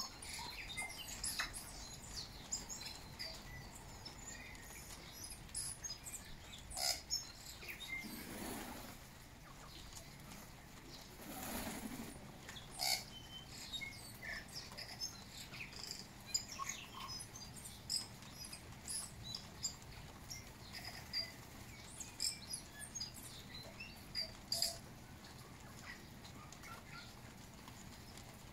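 Tui calling: a scattered run of short clicks, chirps and high notes, with two longer rushing sounds about eight and eleven seconds in.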